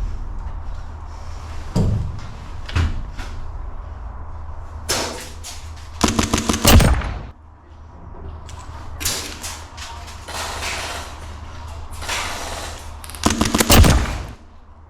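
Airsoft guns firing: a few single shots early on, then two rapid bursts of about a second each, one near the middle and one near the end.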